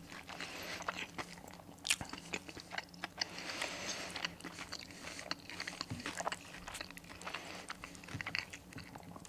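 A mouthful of crispy breaded chicken burger being chewed, with small crackling crunches throughout and one sharper crunch about two seconds in.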